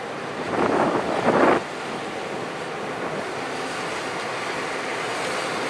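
A 90 cm gauge island railway train rolling past at low speed, a diesel locomotive on its rear, heard under steady wind noise on the microphone. Two short, louder rushes of noise come about a second in.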